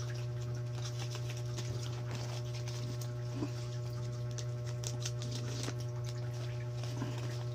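A steady low electrical hum, with faint crinkling and rustling of folded paper banknotes being unfolded and handled.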